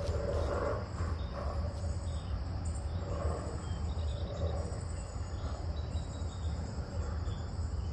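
Steady, high-pitched insect trill over a constant low rumble.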